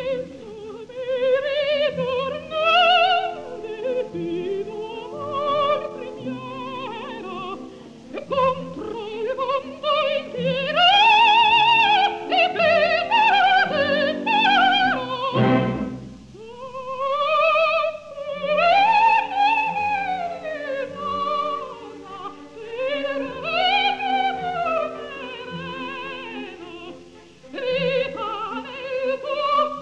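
Operatic soprano singing a bel canto cabaletta with orchestra, in long rising and falling phrases with a strong vibrato. It is heard on a 1952 live mono-era recording with little treble.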